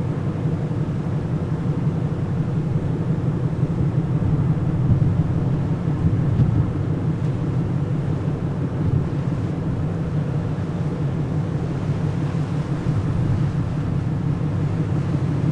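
Steady low drone of the Aogashima Maru ferry's engines, heard on board while the ship is under way, over an even rush of noise.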